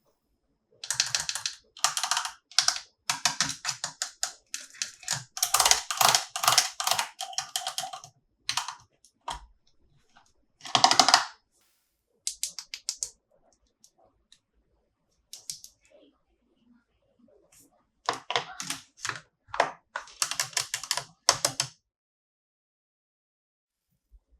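Toy packaging and toy figures being handled during an unboxing: bouts of rapid, sharp clicking and crackling, the longest in the first third, with quiet pauses between and another run near the end.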